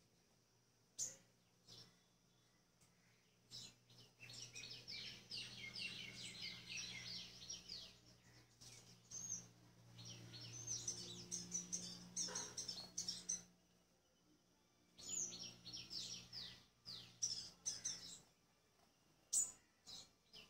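Sunbird twittering: three runs of rapid, short down-slurred chirps, with a few single sharp call notes between them, over a faint low hum.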